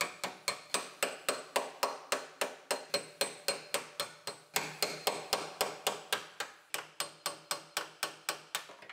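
Hammer striking a steel scraper driven into a spot-welded sheet-metal seam: rapid, even metal-on-metal taps, about four to five a second. The scraper is being knocked in to break the drilled-out spot welds and pop the piece free.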